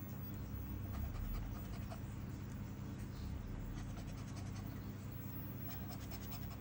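Light, quick scratches of the coating being scraped off a lottery scratch card, bunched more thickly in the second half, over a steady low hum.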